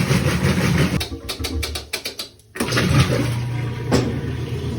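Top-load washing machine running under test, its electric motor humming steadily as it drives the tub through a newly fitted motor coupler, with water sloshing. The sound drops out briefly about a second in, with a few clicks, then comes back. The machine moving again is the sign that the sheared coupler was the fault.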